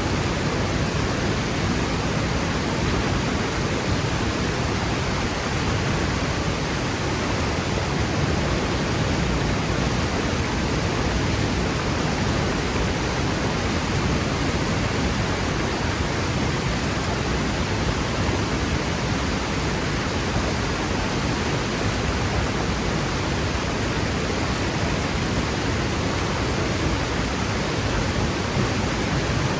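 Waterfall crashing down a rock face: a steady, unbroken rush of falling water.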